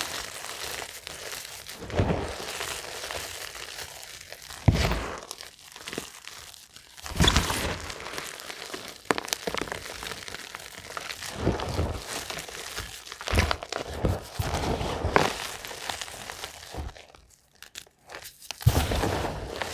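Hands squeezing and crushing clumps of dyed gym chalk into powder: a string of soft, crunchy crumbles, a loud squeeze every two seconds or so with quieter crumbling in between.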